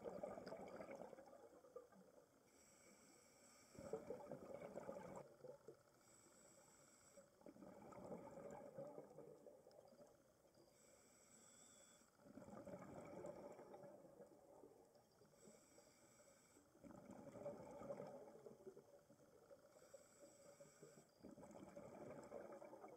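Faint scuba breathing through a regulator underwater: a short hiss on each inhale, then a burst of bubbling on each exhale, repeating about every four to five seconds.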